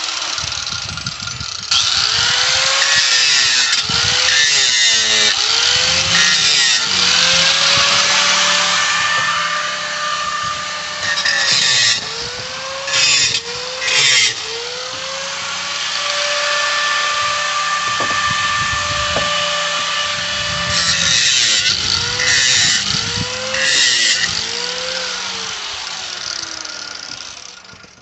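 A handheld power tool runs almost nonstop, its motor pitch repeatedly dipping and recovering as it bites into and frees from the nails in a pallet board. There are a few harsher, louder stretches of cutting along the way.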